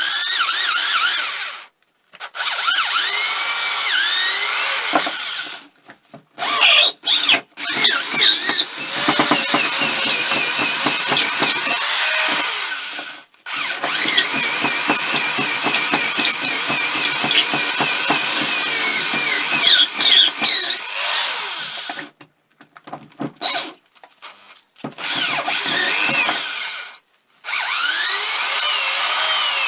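A handheld electric power tool, drill or grinder type, running on a workpiece in several short stretches that cut off abruptly. Its whine sags and rises in pitch as it is loaded.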